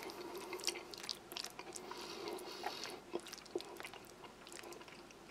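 Plastic spoon stirring saucy pasta in a bowl: faint, irregular clicks and soft wet squelches.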